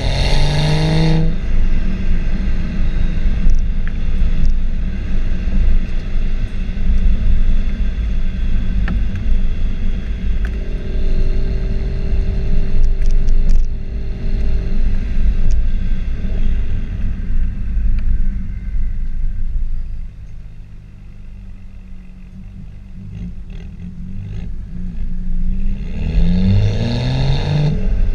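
Exhaust of a stock BMW 335i's turbocharged straight-six, heard right at the tailpipe: the revs climb in the first second, then a long stretch of steady running buried in a heavy low rumble. It quietens about two-thirds through, then the revs climb again near the end.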